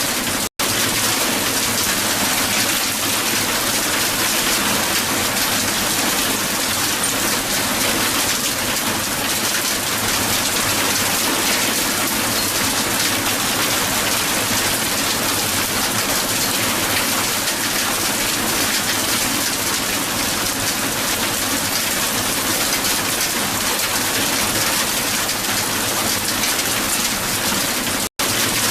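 Heavy hail pelting down on a hard surface, a dense, steady patter of ice stones. It cuts out for an instant twice, once just after the start and once near the end.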